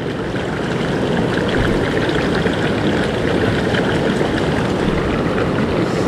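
Steady rush of a mountain headwater stream's flowing water.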